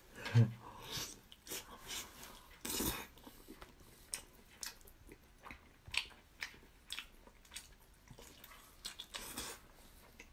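A man biting and chewing a large piece of glazed braised fatty pork, with irregular wet mouth clicks and smacks.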